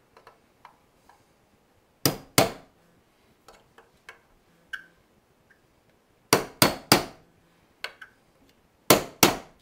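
A hammer tapping a steel nail set to drive a galvanized nail below the surface of a wooden chair spindle. There are seven sharp taps in three groups: two, then three, then two.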